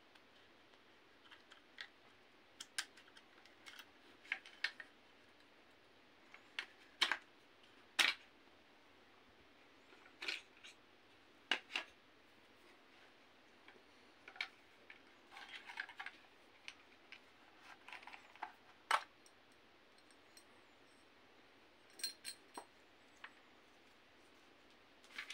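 Scattered small clicks, taps and knocks of plastic and metal parts being handled while assembling a CYMA CM.041K airsoft submachine gun: small screws and a key worked at its front end, parts set down. A few of the clicks are sharp and louder than the rest.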